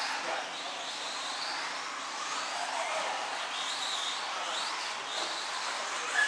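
Electric 4WD radio-control buggies' motors whining, the pitch rising and falling again and again as they accelerate and brake.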